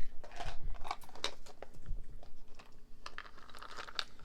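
Miniature plastic toy items being handled: irregular small clicks and taps with some crinkling.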